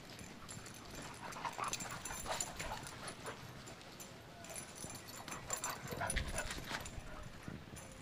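Dogs playing, with scattered short yips and whimpers and some thumps, loudest in two spells, one about two seconds in and one near the end.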